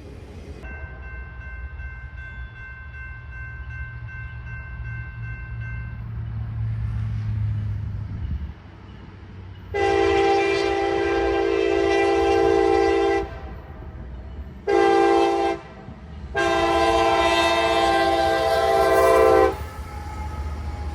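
Freight train's diesel locomotive approaching, its low engine rumble building, and its air horn sounding a fainter long blast, then loud long, short and long blasts: the long-long-short-long grade-crossing signal.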